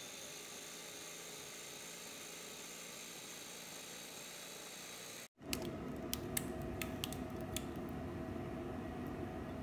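Kitchen blender motor running steadily with a faint high whine for about five seconds, pureeing cooked lentils. Then, after a short break, a louder steady low hum with a few sharp clicks of a utensil against the pan as the purée is added.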